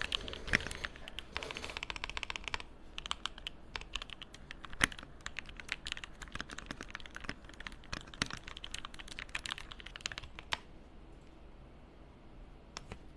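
Typing on a computer keyboard: a fast, uneven run of key clicks that stops about ten seconds in, followed by one last click near the end.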